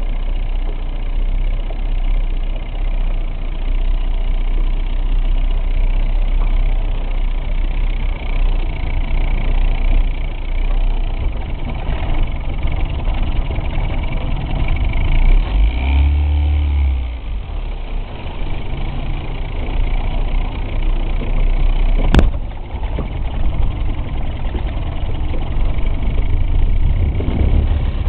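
Johnson 50 HP outboard motor running steadily. Its low note changes about sixteen seconds in, and there is one sharp knock a few seconds after that.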